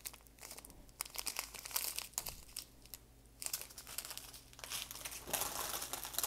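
Small sealed plastic packets of diamond-painting drills and a clear plastic bag crinkling as they are handled, in three short bouts of crackling.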